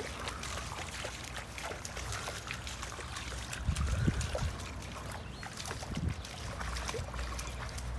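A boxer's paws splashing as it wades through a shallow brook, with water trickling. There are irregular small splashes and a few heavier steps around the middle.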